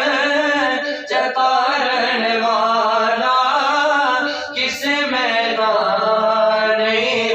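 A man singing the opening of a Punjabi hamd solo, in long, drawn-out, wavering notes, pausing for breath about a second in and again past the middle.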